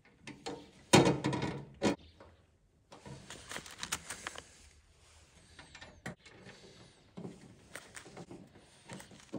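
Handling of a galvanised steel cover plate and its screws on a steel tailgate: a loud clatter of metal about a second in, then rubbing and small clicks as the plate is set in place and the screws are dropped into their holes.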